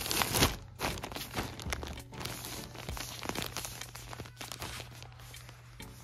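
Plastic zip-top bags crinkling and rustling as they are handled, in irregular crackles that are loudest at the start, over a steady low hum.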